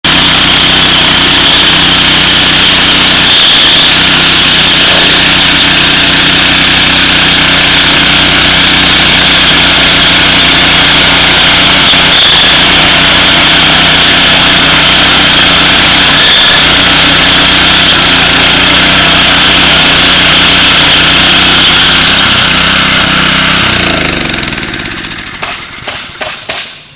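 Small engine of a trenching machine running steadily as it cuts a trench and lays drip irrigation line. A little before the end the engine's pitch falls and it winds down.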